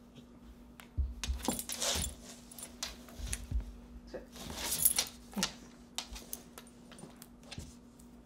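Golden retriever moving on a hardwood floor as she gets up from a roll-over: collar tags jingling, claws clicking and a couple of dull thumps of her body on the floor, from about a second in until about five and a half seconds, then quieter.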